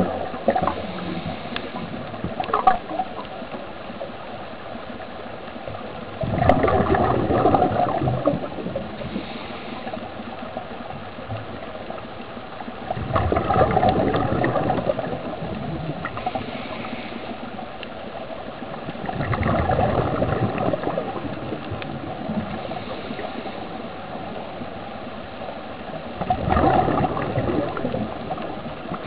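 Air bubbles gurgling underwater from a helmet-diving (sea walker) air supply, over a steady hiss, swelling in bursts of about two seconds roughly every six to seven seconds.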